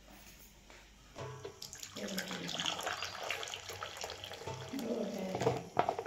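Milky tea poured from an electric kettle into a ceramic bowl: a splashing stream that starts about a second in, with a sharp knock near the end.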